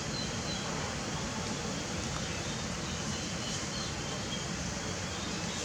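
Steady outdoor background hiss, with a few faint, short, high chirps scattered through it.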